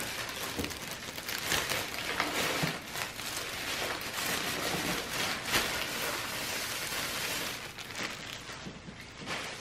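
A clear plastic bag crinkling and rustling continuously as hands pull a doll out of it, in a dense run of small crackles.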